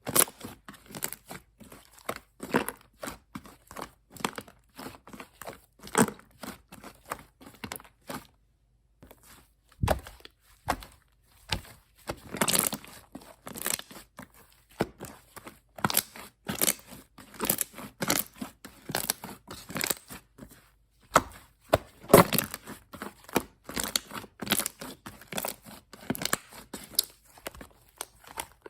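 Pink shaving-foam slime being squeezed, stretched and poked by hand, giving irregular crackles, squelches and small pops, with a brief pause partway through.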